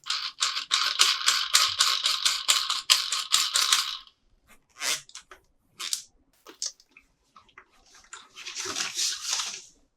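Toy packaging handled by hand: a rapid crackly run of strokes for about four seconds, then scattered clicks and a short rustle near the end.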